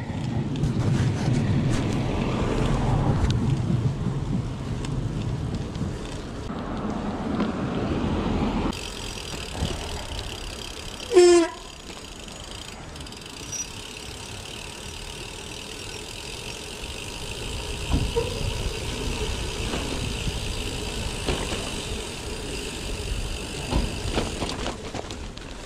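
Riding noise from a gravel bike: tyres rolling and rumbling over the track, louder for the first nine seconds, then quieter and steadier. About eleven seconds in comes one short, loud, pitched toot.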